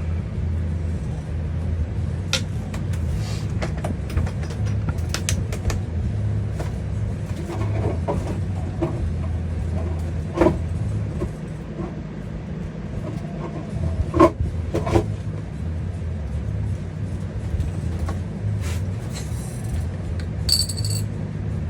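Scattered small clicks and taps of paintball marker regulator parts being handled while an O-ring is fitted to the regulator piston, over a steady low hum.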